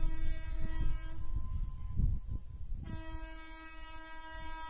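Train horn sounding a long steady blast, breaking off about a second and a half in, then sounding again near the end, over a low rumble.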